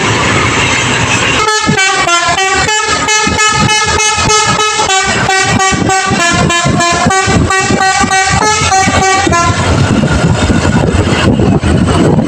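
Tour bus's telolet multi-tone air horn playing a fast tune of short notes, about four a second. It starts about a second and a half in, runs for about eight seconds and then stops, leaving a steady rushing noise before and after it.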